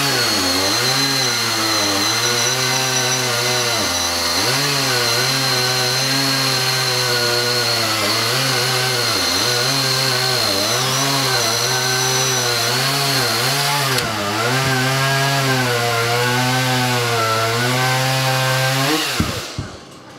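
A gas chainsaw and a Milwaukee M18 FUEL cordless chainsaw cutting through a log at the same time. The engine note repeatedly sags and recovers as the saws bite in, over a steady high whine. Both stop about a second before the end.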